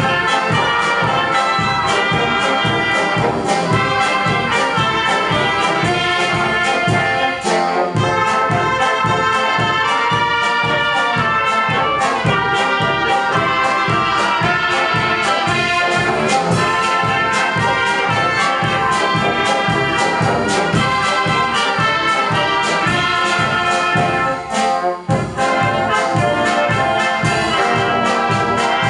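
Brass band of trumpets, trombones and tubas playing together, with a steady beat in the bass. The music drops out briefly twice, about seven seconds in and again about twenty-four seconds in.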